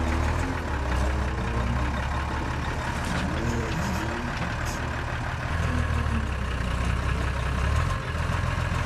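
Diesel engine of a Unimog trial truck running under load as it crawls over stone blocks: a steady low drone that eases off briefly a couple of times.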